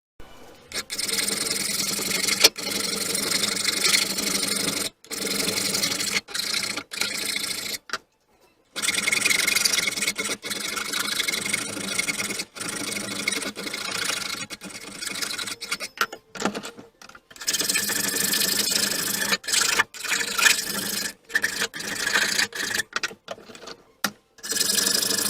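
Abrasive rubbing on the rusty steel of a bar clamp as it is cleaned up, a steady scratchy noise in stretches of a few seconds that cut off suddenly several times.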